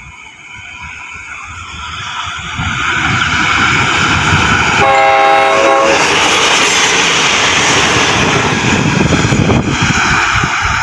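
Thai Railway Sprinter diesel multiple unit (set 2505) approaching and passing close at speed. The engine and wheel-on-rail rumble grows loud over the first few seconds. One horn blast, about a second long, sounds near the middle as the train goes by.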